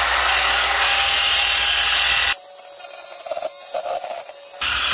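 Power tool cutting a piece of trim: a steady loud noise that cuts off sharply about two seconds in, giving way to a quieter stretch with faint tones, then starts again sharply near the end.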